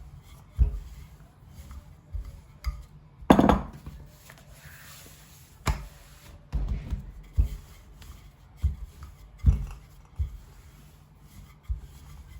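Dough being worked and shaped on a kitchen work surface: irregular soft thumps, with one louder knock of a utensil on the surface about three seconds in.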